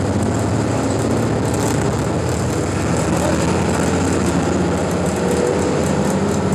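Interior noise of a Neoplan AN460 articulated bus under way: a steady engine drone with road noise.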